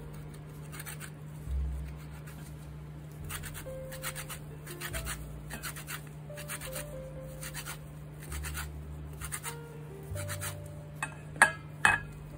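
Orange peel being zested on a hand grater: short rasping strokes, about two a second. Near the end come two sharp knocks close together.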